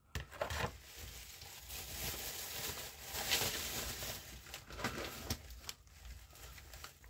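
Plastic retail packaging crinkling and rustling as it is handled, with a few light taps of packages being set down.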